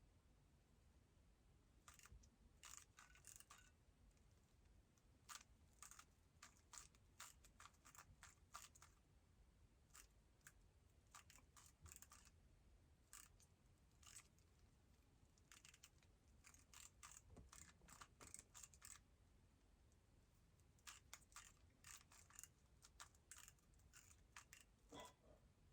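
Faint clicking and clacking of a Moyu WRM 2020 speed cube's plastic layers being turned, in quick runs of turns broken by pauses of a second or two.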